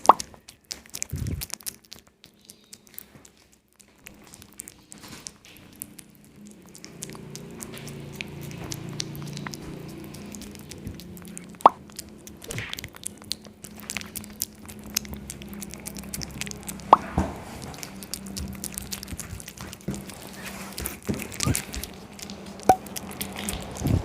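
A cat eating a snack up close: scattered wet mouth clicks and smacks, a few of them sharper and louder. A low steady hum comes in about seven seconds in.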